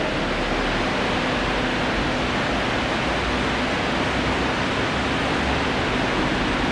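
Steady, even hiss-like noise with no voice and no changes, loud enough to fill the recording.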